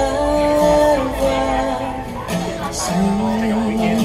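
A woman singing a slow melody in long held notes, accompanying herself on acoustic guitar.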